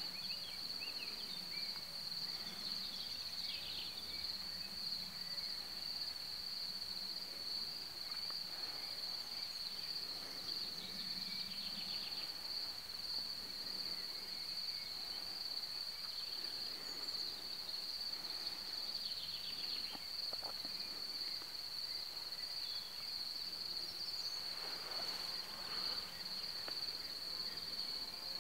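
Crickets chirring in one steady high-pitched trill, with a few faint bird calls now and then.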